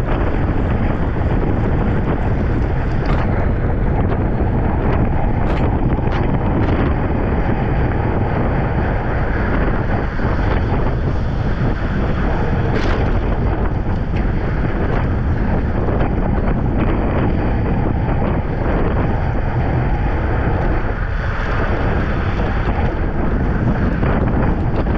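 Wind buffeting a bicycle-mounted action camera's microphone as the bike races at speed on a wet road: a loud, steady rush with a few faint ticks now and then.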